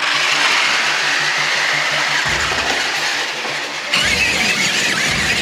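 A toy remote-control tank's electric drive motors and plastic tracks whining and rattling as it drives, starting suddenly and growing louder near the end, with a few low bumps as it climbs over boxes.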